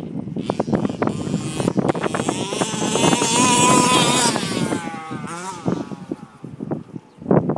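A radio-controlled KM 002TX car's motor revving up and down as the car drives, its pitch wavering and gliding in the middle stretch, with wind buffeting the microphone.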